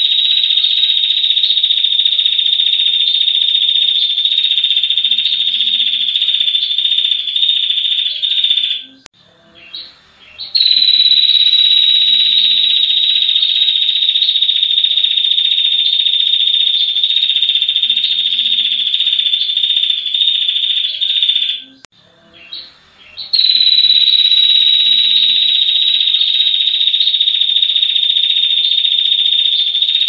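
Female ashy tailorbird (red-headed tailorbird) giving long, rapid, rattling trills: one unbroken trill, a short break about 9 seconds in, another long trill, a second short break about 22 seconds in, then the trill starts again.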